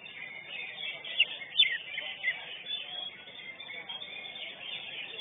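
Caged greater green leafbird (cucak hijau) singing a fast, continuous run of chirps and whistled notes, with two sharp loud notes about a second and a half in. Crowd chatter sits underneath.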